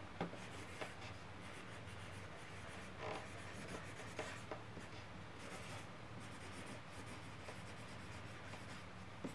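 Felt-tip marker writing in cursive on paper: faint scratching of the pen strokes with a few small ticks, over a low steady hum.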